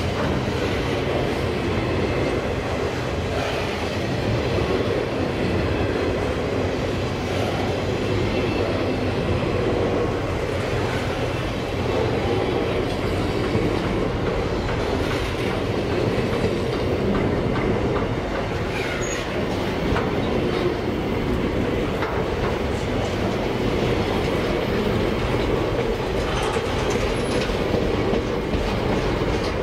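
Freight train rolling past, its wagons' wheels clicking over the rail joints in a steady, unbroken run.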